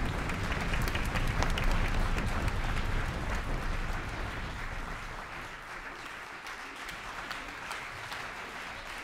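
Audience applauding, dense clapping that fades away about halfway through to a thinner, quieter patter.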